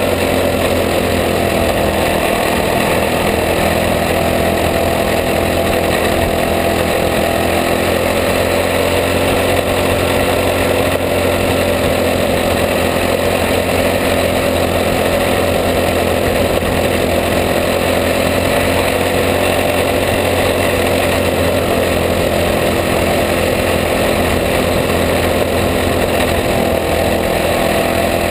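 A caged racing kart's small engine running hard under racing, heard onboard close to the engine. The sound is loud and steady, its pitch rising and falling slightly.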